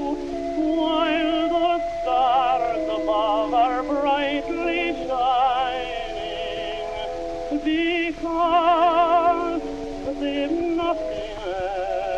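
Slow music: a melody with heavy vibrato on long held notes over sustained accompanying tones.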